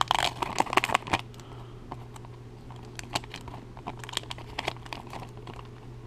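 Plastic trading-card pack wrapper crinkling as it is pulled open by hand. A dense run of crackles comes in the first second, then scattered crackles follow.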